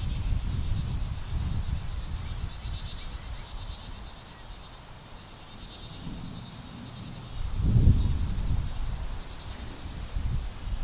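Insects chirping in pulsing bursts with a steady high whine, over low wind rumble on the microphone that swells about three-quarters of the way through.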